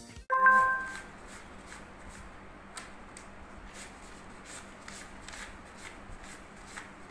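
Paper banknotes being counted by hand: a steady run of soft, crisp flicks, a few each second. A short pitched sound, the loudest thing here, comes about half a second in.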